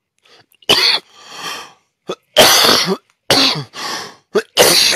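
A man coughing hard: a run of several harsh coughs, the loudest about two and a half seconds in, with softer breaths between them.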